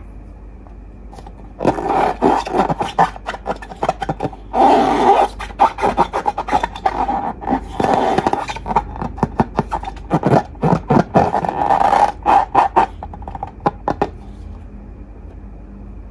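Slime being squished and worked by hand, giving dense, irregular sticky crackles and clicks. It starts about two seconds in and stops about two seconds before the end.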